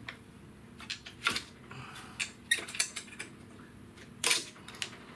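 Half a dozen irregular sharp metallic clicks and clinks of hand tools: pliers working hose clamps and hose fittings on an engine.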